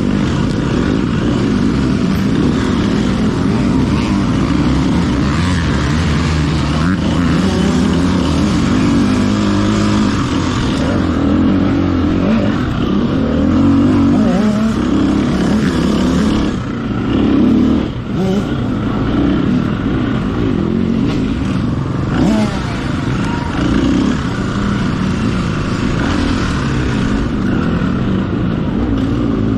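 Off-road racing dirt bike's engine, heard from on the bike, revving up and down continuously as it is ridden hard, with a brief let-off of the throttle a little over halfway through.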